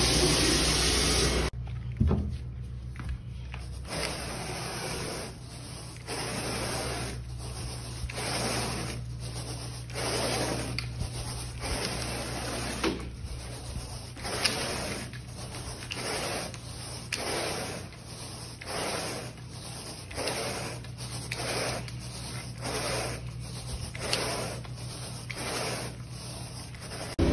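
A carpet-extractor wand hisses steadily for the first second and a half, then cuts off. After that come repeated rubbing strokes across carpet pile, about one a second, over a low steady hum.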